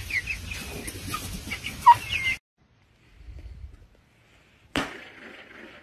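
Chickens clucking and giving short, falling chirps, one louder than the rest, over a rustling background, cutting off abruptly about two and a half seconds in. Near the end comes a single sharp knock followed by a faint hiss.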